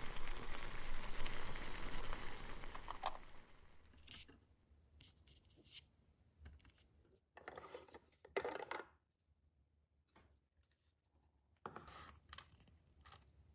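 Crinkly rustling for about the first three seconds, then scattered small clicks, taps and scrapes with quiet gaps: small pieces being handled and set down.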